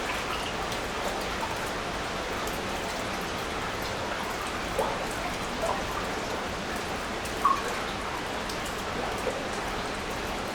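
Meltwater dripping from the ice of a frozen waterfall: a few single drops plinking, the sharpest about seven and a half seconds in, over a steady hiss of running water.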